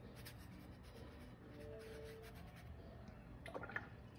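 Faint, scratchy rubbing of a paintbrush on watercolour paper, with a few soft clicks near the end.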